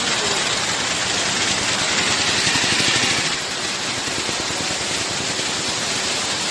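Heavy rain falling steadily, a dense even hiss that is a little louder for the first three seconds and then slightly softer.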